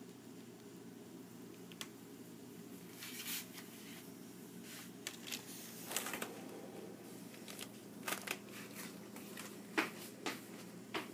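Hamster nibbling dry oatmeal: faint, irregular little crunches and clicks, more frequent after the first few seconds, over a steady low hum.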